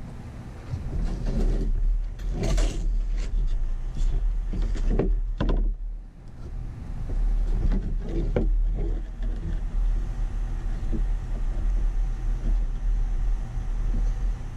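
Wooden pieces, a plywood panel and a 2x4 brace, knocking and scraping on a plywood tabletop as they are handled and set in place, a series of irregular knocks and scrapes. A steady low hum runs underneath.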